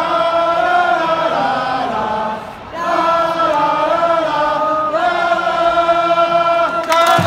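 Large stand of baseball fans singing the opening of a player's cheer song in unison on 'la la la', two long melodic phrases with a short break about two and a half seconds in.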